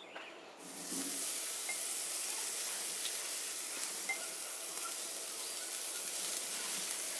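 Steaks sizzling on the grate of a charcoal kamado grill as they go on for the final sear of a reverse sear. The sizzle starts suddenly just under a second in and then runs steady, with small crackles now and then.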